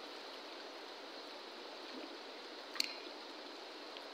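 River water rushing steadily, with one sharp click a little under three seconds in.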